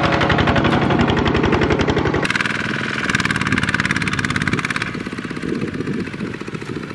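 Single-cylinder diesel engines of Kubota two-wheel walking tractors chugging with a rapid, even beat while hauling trailers loaded with rice sacks. The sound changes abruptly about two seconds in.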